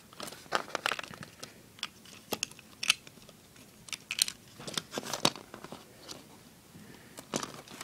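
Irregular clicks and rattles of plastic Lego bricks as hands handle and reset a rubber-band-powered Lego cannon.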